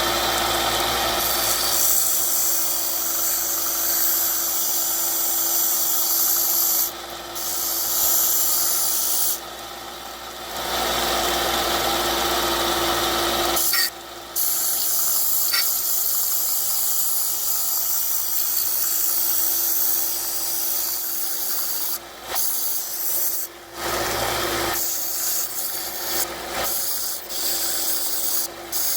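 A handheld power tool runs with a steady whir and the rubbing noise of its work. It stops and restarts several times.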